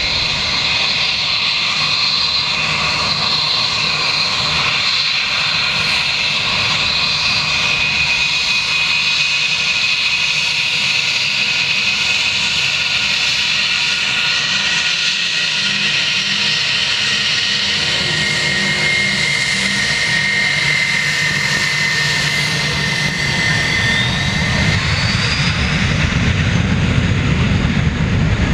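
Jet engines of a Wizz Air Airbus A320 whining steadily as the airliner moves on the runway. About three-quarters of the way in the whine rises in pitch, and a deeper rumble grows louder toward the end as the engines spool up.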